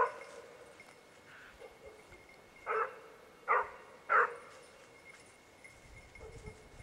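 Basset bleu de Gascogne hound giving tongue while hunting a rabbit: one loud bay right at the start, then three more about three seconds in, spaced a little over half a second apart.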